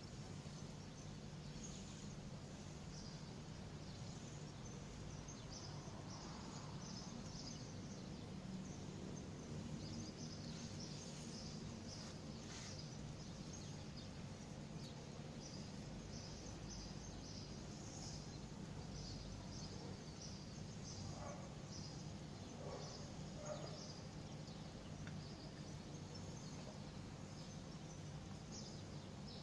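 Faint outdoor ambience: a steady low hum under scattered, irregular high-pitched chirps, with a few lower calls about three quarters of the way through.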